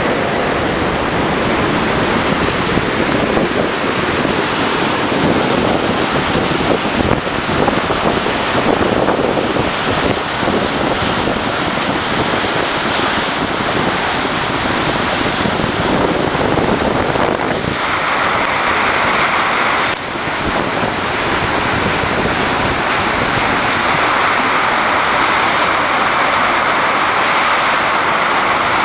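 Loud, steady rush of river water pouring through an opened dam sluice gate and churning with broken ice floes below it, as ice is passed through the dam.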